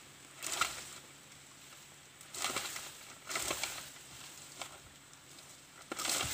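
Four short rustling crashes in palm fronds and leaves, a second or two apart, while young coconuts are picked from the top of a coconut palm.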